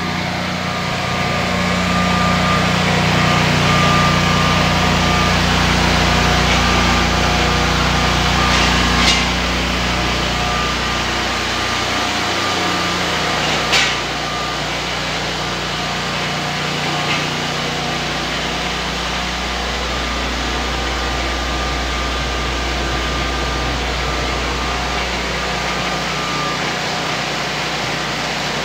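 Electric walk-behind concrete floor grinder running steadily with its dust-extractor vacuum, grinding an old paint-chip epoxy coating off a concrete garage floor: a constant mechanical drone with a low hum and a thin whine, with two sharp clicks about nine and fourteen seconds in.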